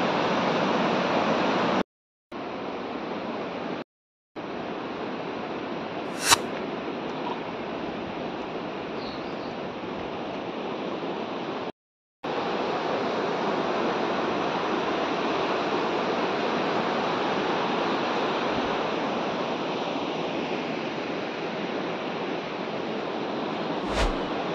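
Steady rush of the fast, rocky Beas river, a mountain torrent, with a single sharp click about six seconds in. The sound cuts out briefly three times.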